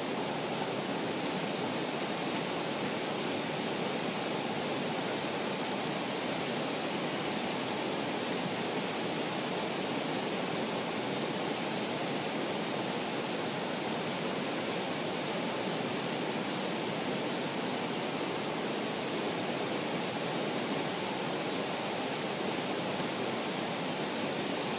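Waterfall and rocky cascading creek rushing: a steady, even roar of falling water.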